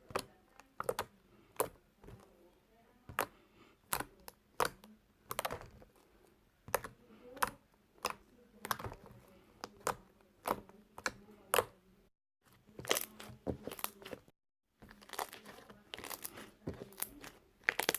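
Slime being squished and poked by hand, making irregular sharp pops and clicks. The sound cuts out completely twice, briefly, in the second half.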